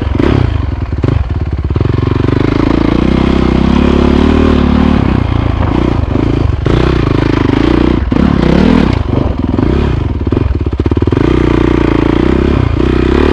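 Dirt bike engine heard from the rider's helmet, its note rising and falling as the throttle is worked while climbing a steep dirt trail.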